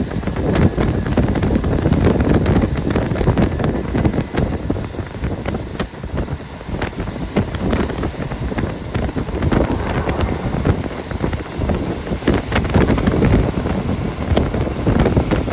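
Wind buffeting the microphone: a loud, gusty rumble that rises and falls.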